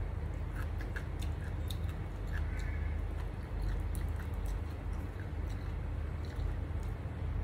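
Eating sounds: chewing and lip-smacking, with scattered small wet clicks as fingers work rice on a plate, over a steady low rumble.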